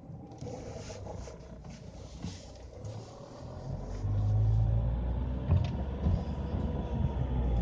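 Mercedes-Benz B-Class with a CVT pulling away: a low rumble comes up about four seconds in, with a faint tone rising slowly above it and a single click a little later. This is the grinding noise under acceleration that the owner blames on the CVT.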